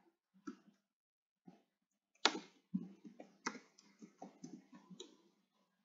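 Keystrokes on a computer keyboard: a couple of lone key clicks, then a quick run of about a dozen keys from about two seconds in.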